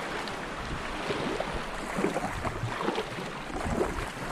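Water splashing and lapping around a sea kayak as it is paddled, with wind noise on the microphone.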